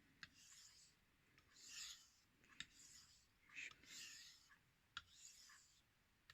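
Knife blade being drawn over an 800-grit whetstone in sharpening passes: faint, repeated gritty swishes about once a second, with small clicks between the strokes.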